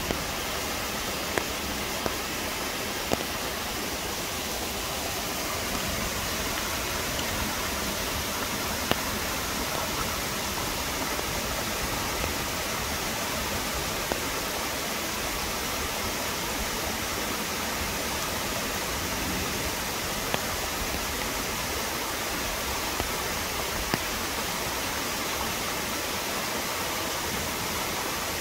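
Chilyeon Falls, a waterfall on a mountain stream, rushing steadily, with a few short sharp ticks scattered through the sound.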